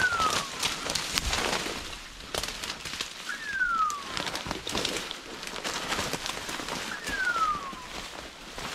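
Rustling and crackling of footsteps moving through dry leaves and undergrowth. Over it, a high whistle-like call falling in pitch, just under a second long, comes three times, about every three and a half seconds.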